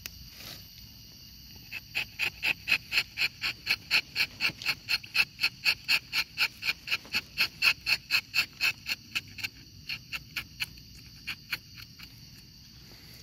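An animal calling: a long run of even, high chirping pulses, about five a second, that starts about two seconds in and thins out to a few scattered pulses near the end, over a steady high insect drone.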